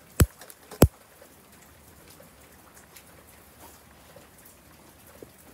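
A long-nosed utility lighter clicks twice sharply, about a quarter second and just under a second in, being sparked to light a sugar snake mixture. After that there are only a few faint scattered ticks.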